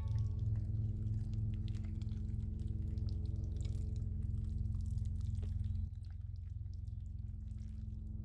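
A steady low hum runs throughout and drops in level abruptly about six seconds in. Over it come faint scattered wet clicks and ticks from a large octopus's arms and suckers sticking to and peeling off damp concrete as it shifts.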